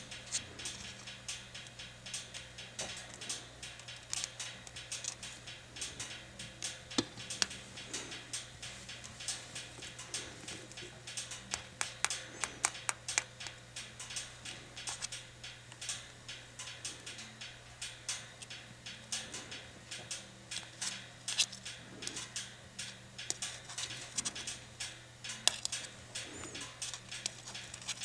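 A spoon scooping and sprinkling loose substrate, making rapid, irregular crackles and ticks, over a steady low hum.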